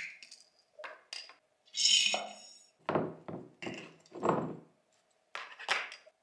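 A soap dispenser being handled on a countertop: a string of clinks, knocks and a scrape as its plastic pump is unscrewed, pulled out and set down, with a faint steady hum behind.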